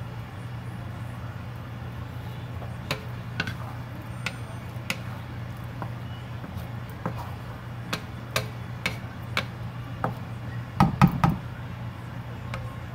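Wooden spatula stirring a wok of thick mung bean stew, knocking and scraping against the pan in a run of sharp taps, loudest in a quick cluster near the end, over a steady low hum.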